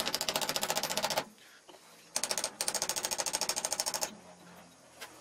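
A hammer tapping a socket to drive a new slip ring down onto an alternator's rotor shaft: two runs of quick metallic taps, more than ten a second, with a pause of about a second between them.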